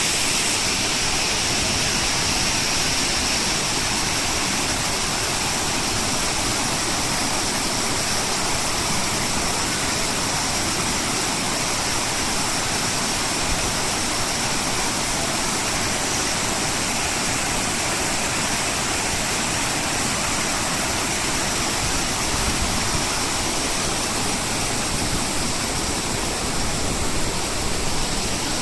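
Yudaki waterfall, water rushing and falling steadily over the rock in a continuous, even roar.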